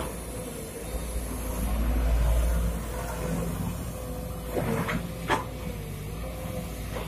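Sumitomo SH210 hydraulic excavator running, its diesel engine swelling under load about a second in, over a steady whine. A few sharp knocks come near five seconds in as the bucket works the soil bank.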